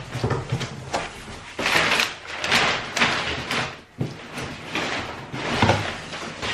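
Unpacking a large cardboard box: crumpled brown packing paper rustling and crinkling, with cardboard scraping and knocking as a smaller box is pulled out from inside.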